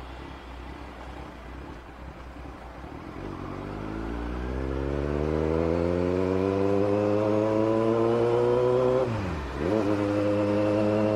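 Kawasaki Z900's inline-four engine under way: a low rumble for the first few seconds, then the revs climb steadily as the bike accelerates, drop sharply for a moment about nine seconds in, and settle at a steady pitch.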